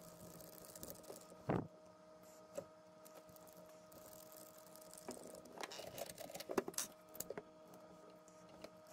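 Faint clicks and light rattles of the small plastic and metal parts of an RC differential being handled by hand, scattered, with a busier cluster about five to seven seconds in, over a faint steady hum.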